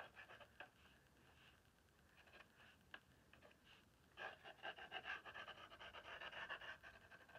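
Faint scratching of a fine-line applicator bottle's metal tip drawing acrylic ink across a gesso-coated journal page. It starts about four seconds in and lasts about three seconds, after a few faint taps.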